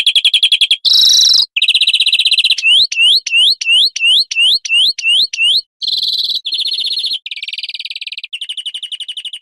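European greenfinch song: fast chirping trills, then a run of about nine quick rising notes, then more trills. The song stops abruptly right at the end.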